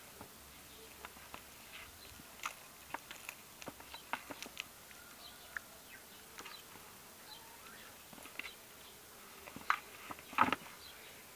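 Faint, irregular scratches and taps of a kitten's claws on a plastic basin as it wrestles a plush toy, with a louder scrape about ten seconds in.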